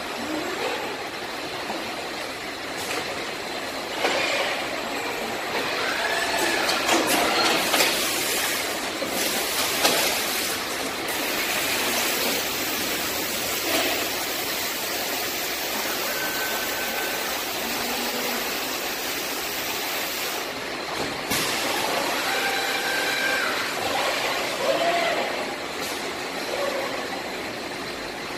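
Running noise of an automated carton-packaging line: roller conveyors and robot arms working steadily, with scattered knocks of cartons and a few short hisses about a third of the way in and again around two thirds through.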